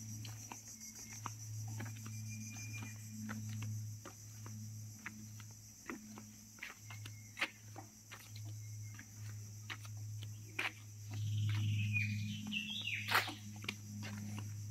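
Steady high-pitched insect drone over a low hum, with scattered light knocks and taps throughout. About eleven seconds in comes a short call sliding down in pitch, ending in a sharp knock.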